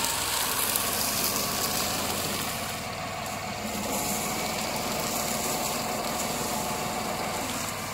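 New Holland tractor's diesel engine running steadily under load while driving a tractor-mounted hydraulic sugarcane harvester cutting standing cane.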